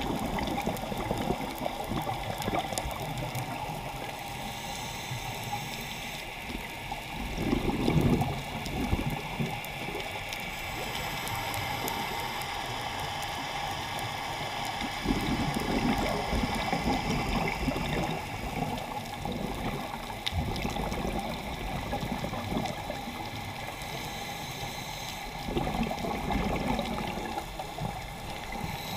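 A scuba diver breathing through a regulator, heard underwater: about three louder gurgling rushes of exhaled bubbles roughly eight seconds apart, with fainter hissing breaths in between, over a steady underwater wash.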